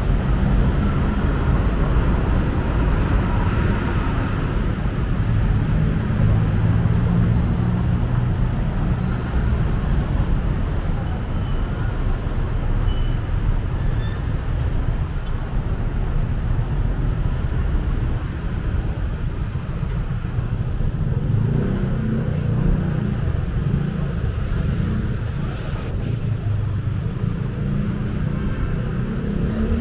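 Steady city street traffic noise, a continuous low rumble of passing vehicles.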